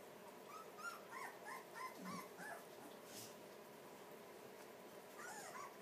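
Newborn blue pit bull puppies squeaking faintly: a run of about six short, high cries in quick succession, then a few more near the end.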